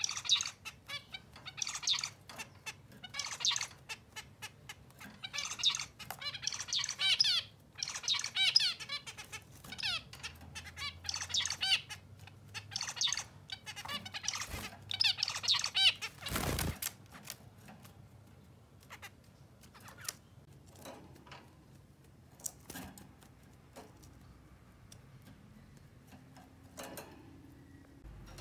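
Male zebra finch singing its courtship song in repeated short bouts of chattering, buzzy notes, followed a little past halfway by a single brief thump. After that, only scattered short calls and clicks.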